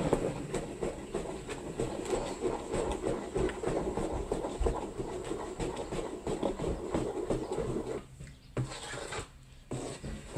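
Wooden spoon stirring thick cake batter in a mixing bowl, a rapid continuous scraping and knocking against the bowl that eases off about eight seconds in.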